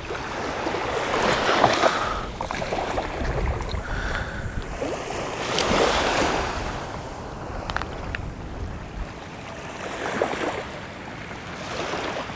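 Small waves washing at the water's edge, swelling and fading every few seconds, with wind rumbling on the microphone.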